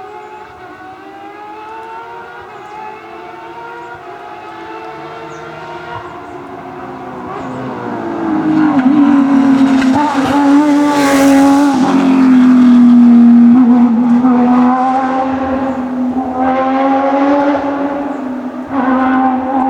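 Porsche racing car's engine running at speed, growing louder as the car approaches and passing close about eleven seconds in with a brief rush of noise. The engine note then holds steady, with a couple of pitch changes near the end.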